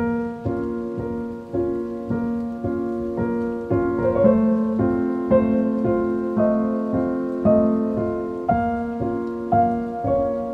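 Solo piano music starts suddenly, with single notes and chords struck about twice a second, each ringing and then fading.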